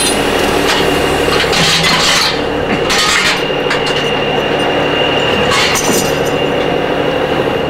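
Diesel engine of a semi truck idling steadily, with a constant high whine over it and a few short hisses about one and a half, three and six seconds in.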